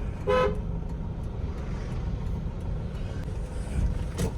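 One short car horn beep about half a second in, followed by a steady low rumble of a vehicle running, and a single click near the end.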